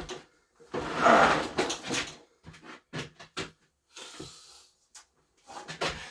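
Handling noise while working on a mower: a longer scraping rustle about a second in, then a string of short knocks and clunks, with a louder clatter near the end.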